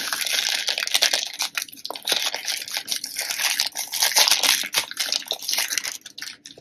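Thin plastic bag crinkling and tearing as it is pulled open and crumpled by hand to free a bottle; the crackling stops about six seconds in.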